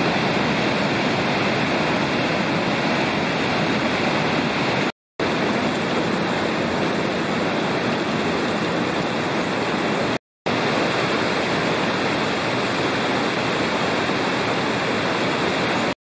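Rushing whitewater of the Schüss river and its cascades in a rocky gorge, a loud, steady water noise. It comes in three takes, separated by brief drops to silence about five and ten seconds in.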